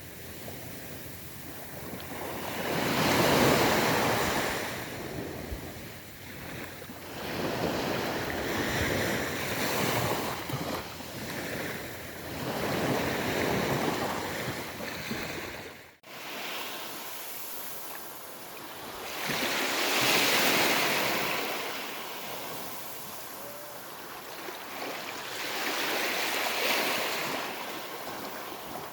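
Ocean waves breaking on a beach, the surf swelling and falling back every five or six seconds, with a brief dropout about halfway through.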